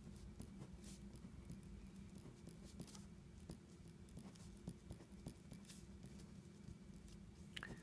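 Faint scratching and light ticking of a ballpoint pen writing on paper, over a low steady hum, with one brief squeak that drops in pitch near the end.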